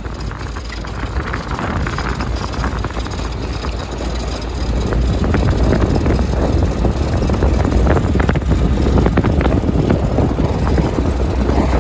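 GAZ-69A's four-cylinder engine running as the jeep drives down the road, with a steady low rumble and road noise. The engine has a freshly replaced crankshaft. It grows louder about four seconds in.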